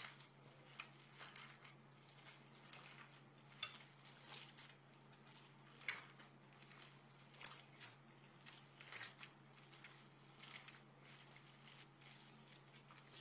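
Faint, irregular squishing of hands kneading raw chicken mince with milk-soaked bread in a glass bowl, with a couple of sharper clicks, one about three and a half seconds in and one about six seconds in.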